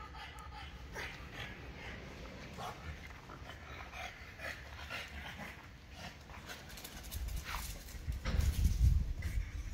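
Golden retriever and French bulldog playing: dog panting and snuffling in short breathy bursts. Heavier low thumping and rumbling takes over from about seven seconds in.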